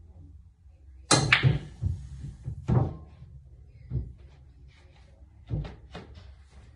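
A pool shot: a sharp clack of the cue and balls colliding about a second in. Several more knocks follow over the next few seconds as the balls hit the cushions and each other.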